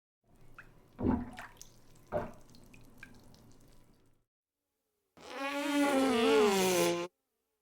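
Two fart sound effects. First a quieter, noisy sputtering fart with two louder pops about a second apart. Then, after a short silence, a loud pitched fart lasting about two seconds that wavers and falls in pitch.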